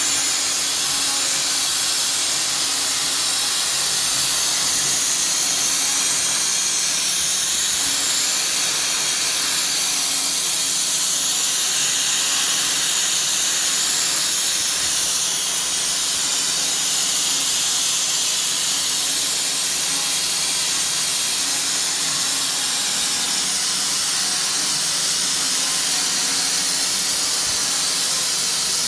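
CNC milling machine cutting a block of Hytac plug material: a steady, high hiss of cutting with a faint low hum under it, unbroken throughout.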